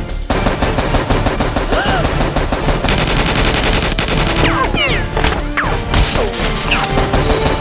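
Rapid automatic gunfire sound effects in long continuous volleys, over background music.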